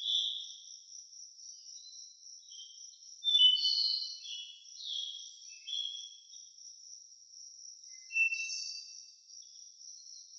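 Crickets trilling in a steady high band while birds sing short, high chirping phrases over it, with louder bursts of song a little after three seconds and again about eight seconds in.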